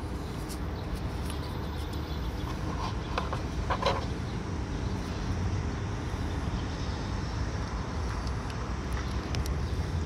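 Steady low background rumble with a few short, faint metallic clicks as bolts are fitted by hand into an engine's fuel rail.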